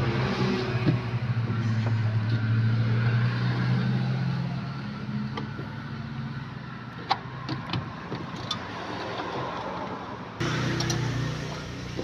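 A motor vehicle's engine running steadily, its low hum swelling and then fading. In the second half come a few light clicks as the freezer's plastic fan cover is pried at by hand.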